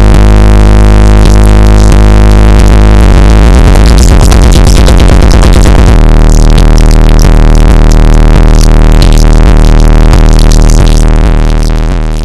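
Electronic music with heavy bass played very loud on a car audio system, two Sound Solutions Audio ZCON 18-inch subwoofers powered by four Sundown Audio SAZ-1500 amplifiers, heard inside the car's cabin. The steady beat breaks up for a few seconds a little way in and comes back around the middle. The sound fades away near the end.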